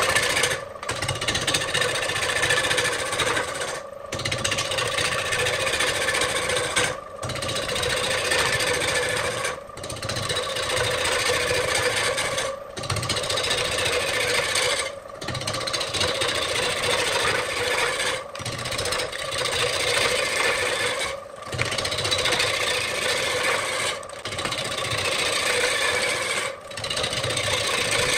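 A belt-driven wood lathe spins a large wooden blank while a turning tool cuts into it, making a steady rough scraping and tearing of wood as shavings fly off. The cutting drops out briefly about every three seconds as the tool is lifted between passes.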